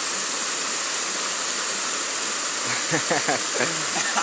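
Flowing river water rushing steadily. A voice speaks briefly about two and a half seconds in.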